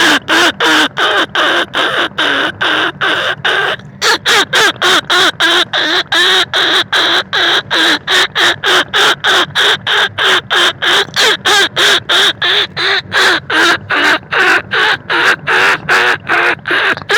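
Rat-calling lure sound for field rats and greater bandicoot rats: rapid squeaking calls repeated about four times a second, with a brief break about four seconds in.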